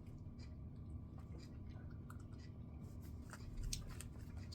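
Faint mouth sounds of someone eating a hard spiced fruit drop, with a few small clicks, over a low steady room hum.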